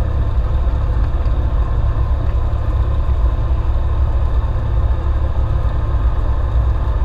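Cessna 172's piston engine and propeller running steadily at low power while the plane taxis, heard from inside the cabin as a constant low drone.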